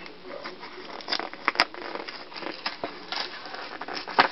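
Crackling and rustling of packaging being peeled off by hand, with irregular small clicks and a sharp snap about four seconds in.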